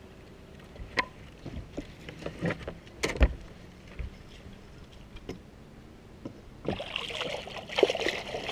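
Knocks and clicks on a boat deck, then from about seven seconds in, water splashing as a hooked bass is fought at the surface beside the boat.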